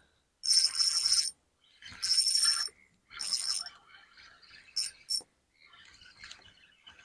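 Fishing reel buzzing in three short bursts, each under a second, while a hooked fish is played on the line, followed by a few faint clicks.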